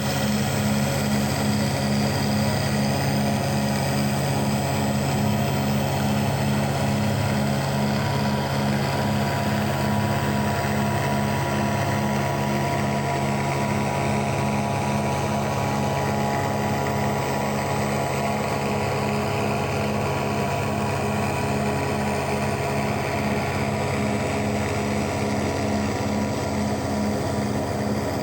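Large-format CNC router milling a long pass: a steady machine whine and hum with a regular low pulsing.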